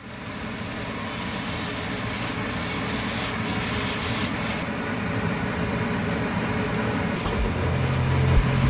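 Food sizzling in a frying pan over a gas burner as it is stir-fried: a steady frying hiss. Near the end a low musical beat comes in underneath.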